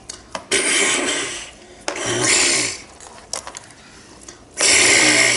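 Three bursts of rasping, scraping noise, about a second each, from a small plastic toy being worked or rubbed against a surface.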